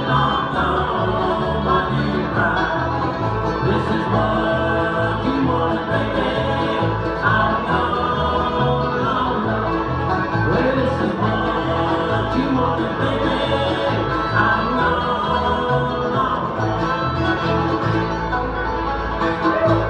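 Bluegrass band playing, with banjo and guitar over a steady bass line and singing.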